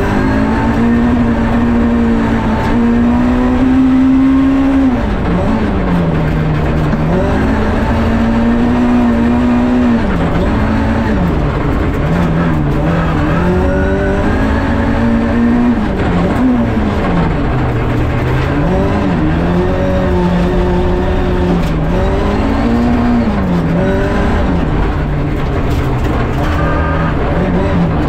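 Rally car engine heard from inside the cabin, at full effort on a stage: the revs climb and drop again and again as the driver works through the gears and slows for corners.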